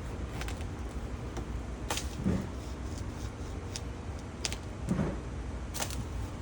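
Irregular sharp clicks and snaps, about seven of them spread unevenly, some with a dull knock, over a steady low rumble.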